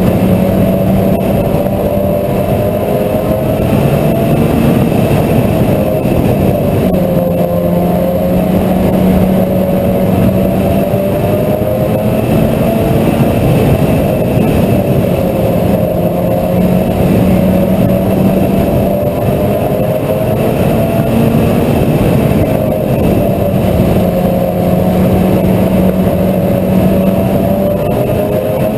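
Mini stock race car engine at racing speed, its pitch climbing and dropping every several seconds as the car accelerates and lifts off around the short oval.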